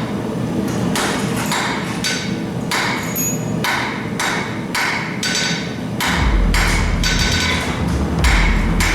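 Hammer blows on an anvil at a steady rhythm of about two a second, each strike ringing briefly. From about six seconds in, a strong low rumble sounds under the strikes.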